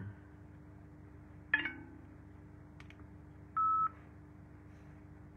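A single short electronic beep, one steady tone lasting about a third of a second, a little past halfway through. Before it come a sharp knock about one and a half seconds in and a couple of faint clicks, over a faint steady hum.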